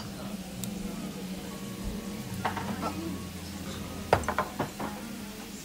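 Chopsticks and tableware clinking against a plate in a few sharp taps, the loudest cluster a little after the middle, over a steady low hum.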